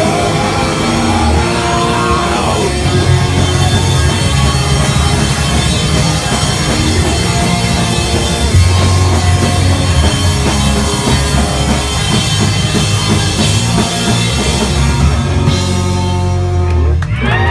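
Punk rock band playing live and loud, with a drum kit driving a dense, heavy low end. Shouting voices rise over the music near the end.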